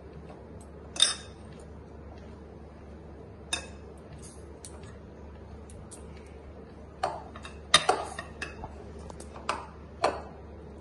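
Dough being kneaded by hand in a bowl, heard as a few sharp, irregular clicks and clinks of hard things knocking together. The loudest come about a second in and in a cluster near the end, over a low steady hum.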